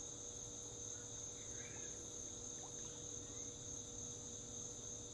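Chorus of crickets: a steady high-pitched trill that runs on without a break, with a faint steady low tone underneath.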